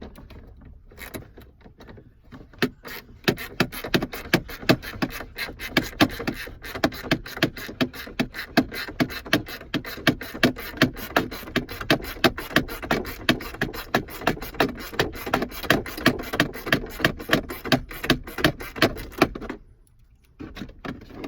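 Socket ratchet clicking fast and evenly as a bolt is backed out, several clicks a second, stopping shortly before the end.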